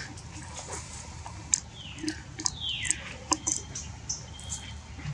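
A macaque gives two high squealing calls that fall sharply in pitch, about two and three seconds in, among small clicks and rustles.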